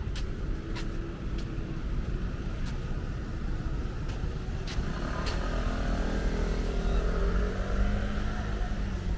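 A motor vehicle's engine passes by, growing louder and rising slightly in pitch in the second half, then easing off near the end. Underneath is steady low outdoor background noise, with a few sharp clicks in the first half.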